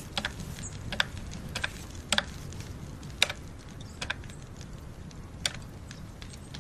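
Laptop keyboard keys pressed one at a time: slow, irregular single clicks, roughly one a second, over a faint low room hum.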